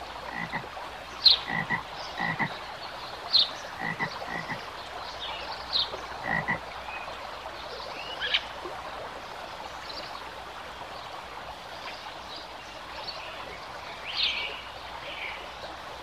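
Frogs croaking in short calls about once a second, over a steady background hiss, with a few brief high chirps mixed in; the croaking thins out after about seven seconds.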